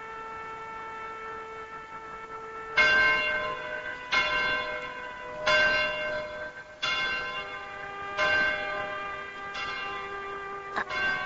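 A church bell tolling slowly. A stroke is already ringing at the start, then about six more strokes come roughly every second and a half from about three seconds in, each ringing on into the next.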